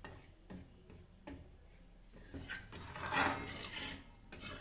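Spatula scraping and stirring dry wheat flour in a heavy-bottomed hammered steel kadhai, a soft rasping rub with small clicks, loudest about three seconds in. The flour is being dry-roasted on a low flame.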